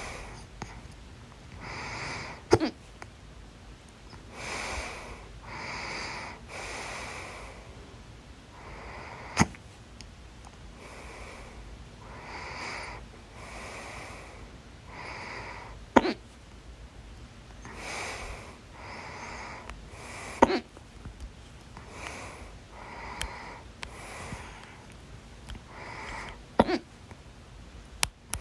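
A person's loud hiccups: about five sharp hics several seconds apart, with breathing between them.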